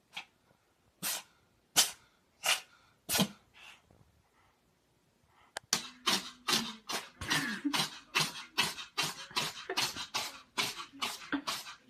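Cat sneezing: five sharp sneezes about two-thirds of a second apart, then, after a short lull, a fast run of sneezes at about three a second.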